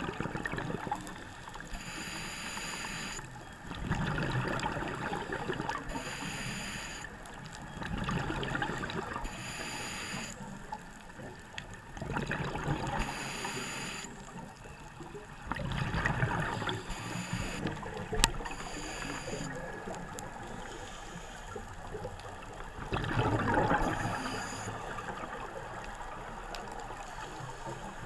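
Scuba breathing through a regulator underwater. A hissing inhale with a faint high whistle alternates with a louder burst of gurgling exhaled bubbles, about once every three to four seconds.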